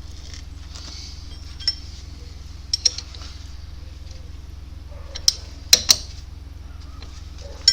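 Metal tools and parts clinking and tapping against each other in scattered sharp clinks, a pair close together near the middle and the loudest ones a little before the end, over a steady low hum.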